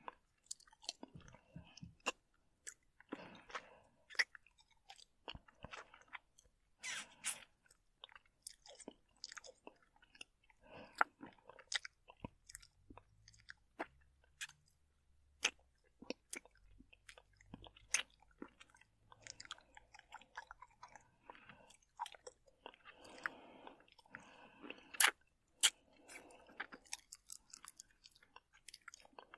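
Close-up mouth sounds of licking and slurping while eating: irregular wet smacks, sharp tongue-and-lip clicks and short slurps.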